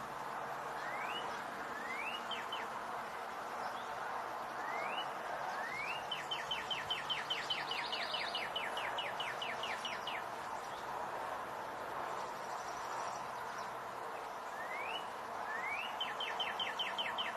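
Northern cardinal singing: phrases of rising slurred whistles, twice running into a fast series of short repeated notes, about four or five a second. A steady hiss of background noise sits underneath.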